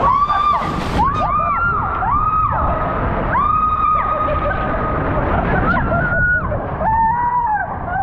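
Riders on a raft water slide screaming and whooping, about seven high cries that rise and fall, one held for about two seconds in the middle, over the steady rush of water under the raft.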